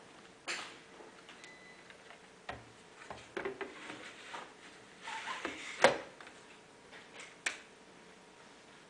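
Hard plastic clicks and knocks as a module is handled and pushed into the base of a DESKO PENTA Scanner ID terminal, with a short scrape of it sliding in about five seconds in and the loudest sharp click just before six seconds as it seats, then a couple of lighter clicks.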